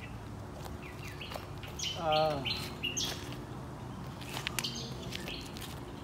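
Wild birds chirping and tweeting in short, scattered calls. About two seconds in there is a brief, louder, wavering call that falls in pitch and sounds almost like a voice.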